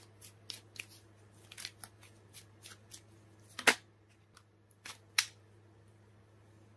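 Tarot deck being shuffled by hand to draw a clarifier card: a run of soft card flicks and taps, with a sharper snap between three and four seconds in and another a second and a half later.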